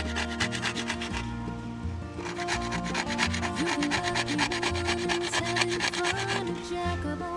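The tip of a metal file scraping paint and lacquer off the edge of an Austrian scythe blade in rapid short strokes, with a brief lull about a second in. Background music plays underneath.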